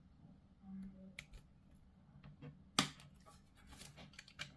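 Faint, scattered clicks and taps of small plastic miniature parts being handled, with one sharper click a little under three seconds in.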